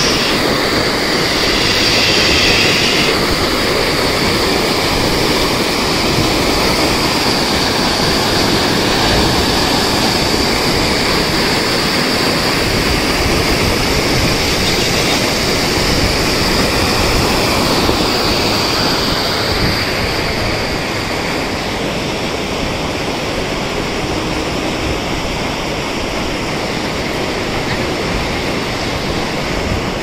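Canal water pouring over a concrete drop and churning in white-water eddies below: a steady, loud rush that eases a little in the last third.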